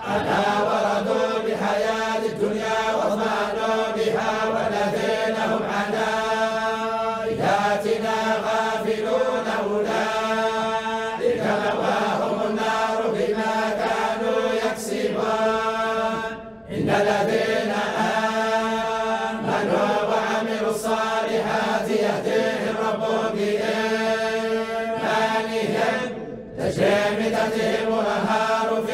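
Group of men reciting the Quran together in unison, a melodic chant in the Warsh reading. Twice the voices stop briefly: once past halfway and again near the end.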